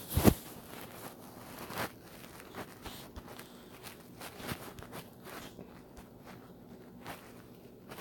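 Handling noise on a phone's microphone while its screen is tapped: scattered soft taps and rustles, the loudest just after the start.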